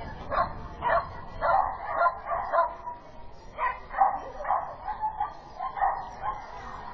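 A dog barking over and over: about a dozen short, sharp barks in quick irregular runs, two or three a second.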